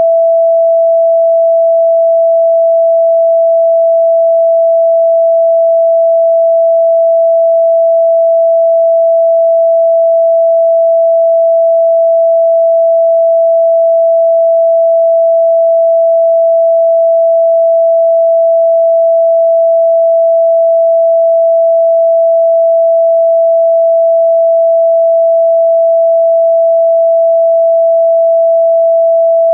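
A single pure sine tone, mid-pitched, held steady and unchanging: an electronically generated meditation tone for chakra activation.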